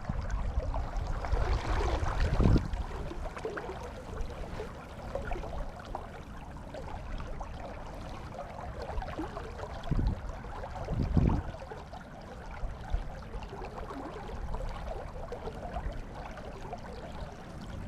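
River water running past, with wind rumbling on the microphone and three stronger gusts, one early on and two close together a little past halfway.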